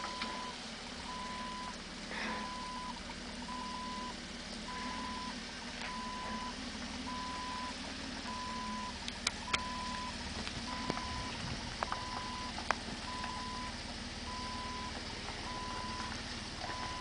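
Jeep Wrangler's engine running low as it crawls down a steep rock slab, under a steady high beep that sounds for about half a second roughly once every second. A few sharp clicks come about nine to twelve seconds in.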